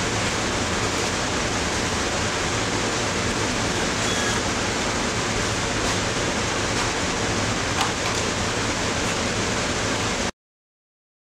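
A steady, even rushing hiss with a few faint clicks, cutting off abruptly to silence about ten seconds in.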